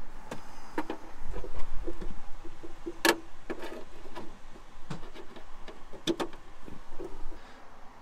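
Scattered clicks and knocks with rustling handling noise as a solar cable's threaded connector is plugged into the input socket of a portable power station.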